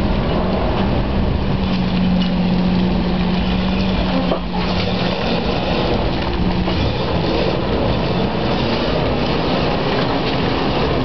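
The 4.2-litre V8 engine of a Simca Marmon SUMB army truck running steadily under load as the truck crawls through mud and up a muddy slope. Its steady engine note dips briefly about four seconds in and fades after about six seconds.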